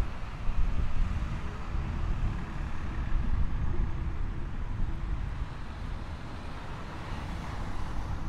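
Outdoor street ambience: a low, uneven rumble of road traffic.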